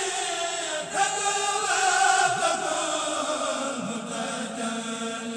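Chanting voices holding long drawn-out notes that slide slowly downward, with music behind them.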